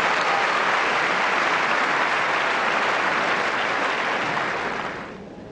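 Tennis crowd applauding after a point. The clapping dies away near the end.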